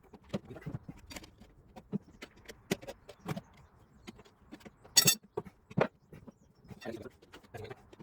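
Tire levers and rim protectors clicking and knocking against a motorcycle wheel rim while a new tire's bead is levered on, with one sharp, louder clack about five seconds in.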